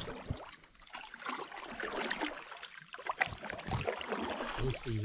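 Canoe paddle strokes in lake water: the blade dipping and pulling, with small splashes and drips running off it.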